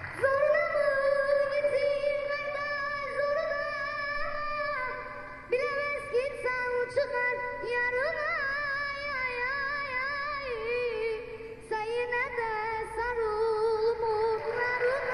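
A boy singing solo into a stage microphone in a high voice. He holds long notes and winds through wavering, ornamented runs, in three phrases with short breaths between them.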